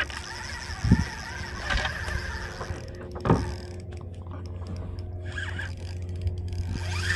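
Spinning reel clicking and whirring as it is worked against a hooked fish, with two dull knocks about one and three seconds in.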